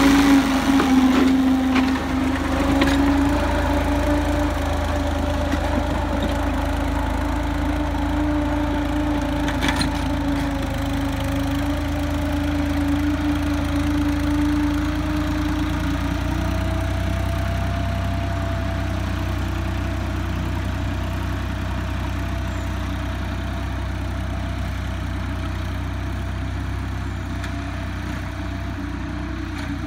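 New Holland tractor's diesel engine running steadily under load as it pulls a tillage implement, growing slowly fainter as it moves away.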